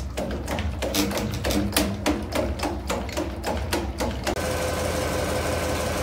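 A boat's large inline marine diesel engine running, with an even knocking about three or four times a second. About four seconds in, the sound switches abruptly to a steady, denser engine noise with a high whine.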